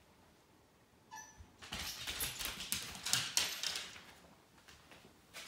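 A Cocker Spaniel gives one short whimper about a second in, then a stretch of light tapping and rustling as the dog and a person move across a wooden floor.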